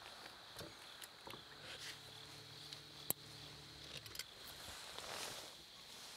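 Quiet open-water ambience on a bass boat deck: a faint steady high hiss, a faint low hum for about two and a half seconds, a sharp click about three seconds in, and a few soft clicks and rustles as the angler handles his gear.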